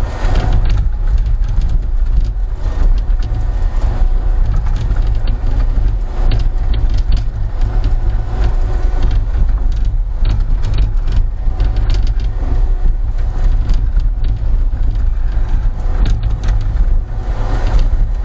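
Diesel engine of a Caterpillar tracked skid steer running steadily as the machine moves, a deep rumble with frequent short clanks and rattles over it.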